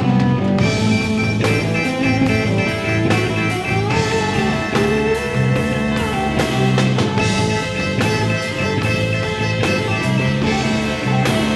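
Instrumental rock music from a 1970s band: guitar over bass and drum kit with a steady beat, and a lead melody line that bends up and down about midway.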